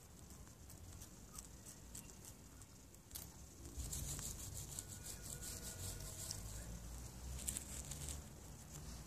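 Partridge silkie hens pecking and scratching in grass and dry leaves: faint, irregular small clicks and rustles, getting busier about four seconds in, over a low rumble.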